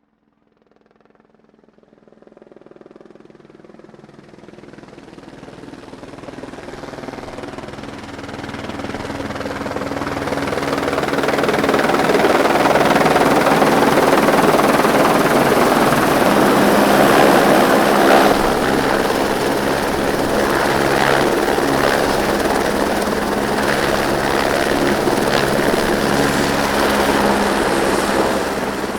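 Helicopter approaching: rotor and engine noise fades in from silence and grows steadily louder over about twelve seconds, then holds loud and steady with a low rotor drone.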